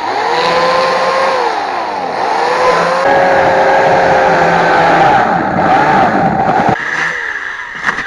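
Small chainsaw's motor running with a high whine whose pitch repeatedly falls and rises as it is revved, changing abruptly twice, about three seconds in and again near seven seconds.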